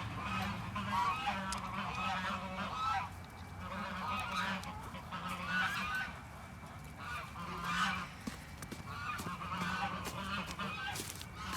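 Farmyard fowl calling over and over, in short repeated calls that follow one another throughout.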